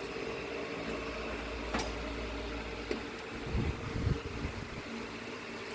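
Steady mechanical hum, like a fan or air conditioner running, with a sharp click a little under two seconds in and a few dull low knocks around the middle, as of parts being handled.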